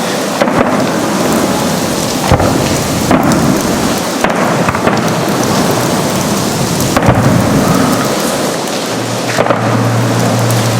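Salute fireworks going off: about seven sharp booms spaced irregularly over a continuous crackling rush. A low steady hum comes in near the end.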